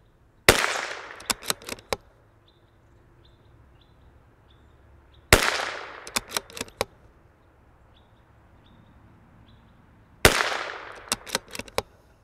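Three shots from a CZ 457 MTR .22 LR bolt-action rifle, about five seconds apart. Each shot is followed within a second or so by a quick run of three or four clicks as the bolt is worked to chamber the next round.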